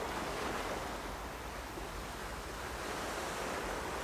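Recorded ocean surf: waves washing on a shore as a steady rushing sound that swells and eases gently.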